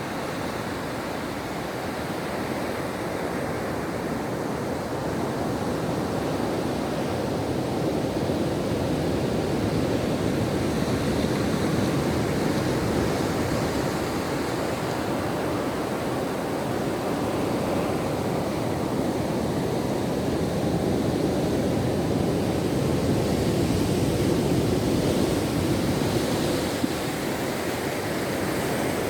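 Ocean surf washing onto a beach: a steady rush of breaking waves that slowly swells and eases.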